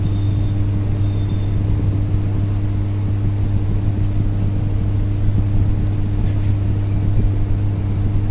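A steady low mechanical hum that holds one pitch without change, with a faint click of hand tools on metal about six seconds in.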